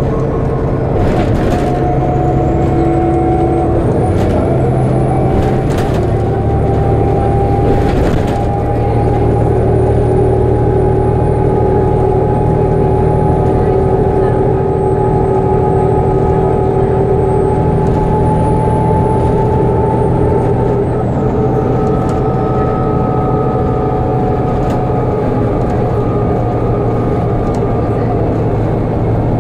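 Volvo B7TL double-decker bus's rear-mounted straight-six diesel and transmission running under way, heard from inside the lower deck: a steady drone with whining tones that rise slowly in pitch, hold, and fall off later. A few sharp rattles come in the first several seconds.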